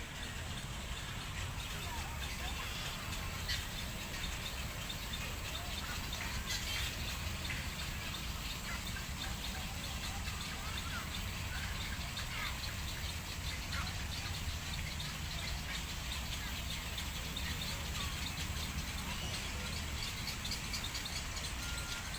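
Birds chirping and calling in many short notes, with a steady low hum underneath.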